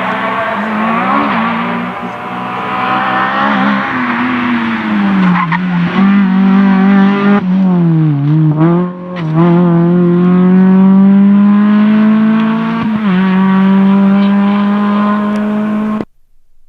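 Rally car engine at high revs, its pitch sagging and climbing again as the driver lifts, shifts and gets back on the throttle. The sound cuts off suddenly near the end.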